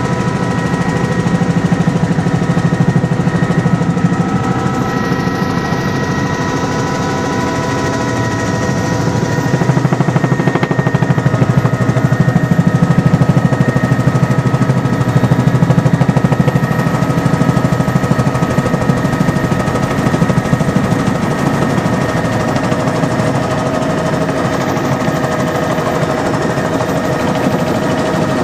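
Helicopter in flight heard from inside the cabin: rapid, steady thumping of the rotor blades over a constant whine of several steady tones from the engine and drive. It swells a little louder for several seconds about a third of the way in.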